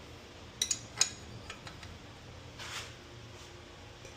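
A few sharp metallic clicks of a 14 mm wrench working on the new muffler's mounting nuts, three close together in the first second, then fainter ticks and a brief scrape a little later, over a low steady hum.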